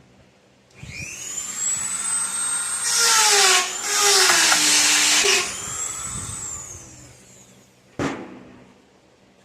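Small high-speed rotary tool spinning up with a rising whine, then cutting for a couple of seconds in the middle, its pitch dropping under the load, before it winds down. A single sharp click comes near the end.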